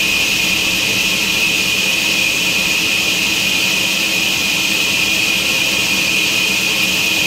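Loud, steady machine noise: a low hum under a strong high-pitched hiss, unchanging throughout.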